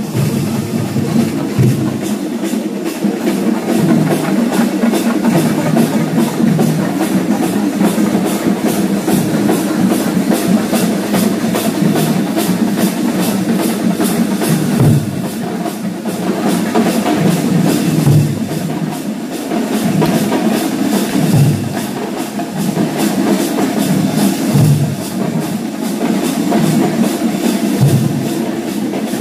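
Music carried by fast, continuous drumming, with deeper drum beats coming in every few seconds.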